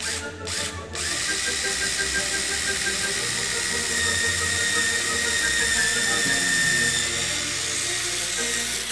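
Cordless drill boring a hole: one short burst of the trigger, then from about a second in a long steady run with a high whine, cutting off near the end.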